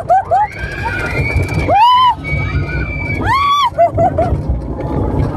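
Several high-pitched squealing calls, one arched call about two seconds in and another about a second and a half later, with short chirps between them, over a steady low rumble.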